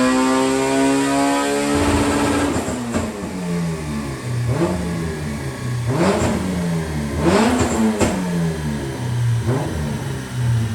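K-swapped Honda Civic EJ9's K-series four-cylinder engine, through a custom 3-inch exhaust, held at steady revs for about two seconds, then blipped several times, the revs rising and falling with each blip.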